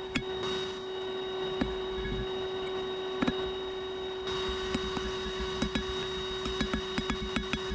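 Forge blower running with a steady electric hum, with irregular sharp clicks and taps over it.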